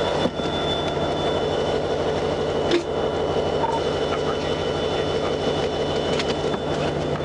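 A train rolling along the tracks: a steady rail rumble with a few faint held tones and a single sharp click about three seconds in.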